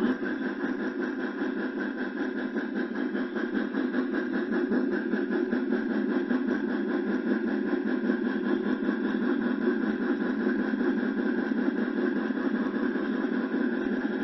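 HO-scale model train with a C&O 2-6-6-6 steam locomotive running steadily along the track: a continuous whirring mechanical noise with a fast, fine rhythm.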